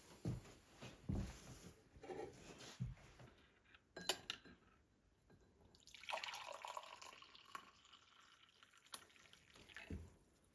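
Faint knocks and clinks of tableware, with liquid being poured for about two seconds just past the middle.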